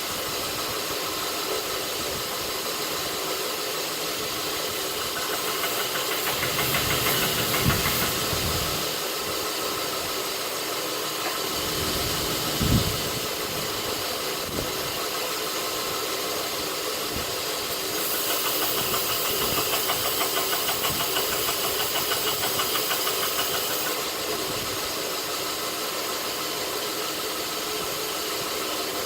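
North Ridge Tool belt grinder running steadily, with a hiss that grows louder for a couple of seconds early on and again for several seconds past the middle as steel is pressed against the belt. There is one short knock about halfway through.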